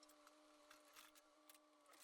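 Near silence: a faint steady hum with a few faint, short clicks.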